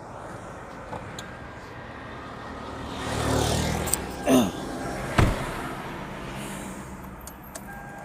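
Vehicle noise swells and fades around the middle, with a short falling squeak and a single sharp knock soon after. The 2004 Toyota Camry makes no cranking sound when a start is tried: a no-crank condition that tightening a loose battery terminal has not cured.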